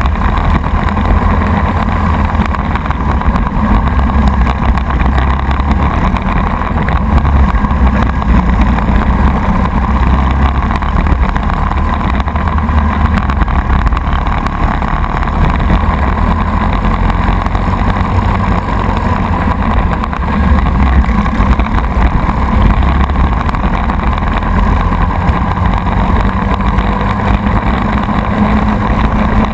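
Racing kart's Briggs & Stratton Animal single-cylinder four-stroke engine running hard through a heat race, heard from on board with wind on the microphone. The sound is loud and unbroken.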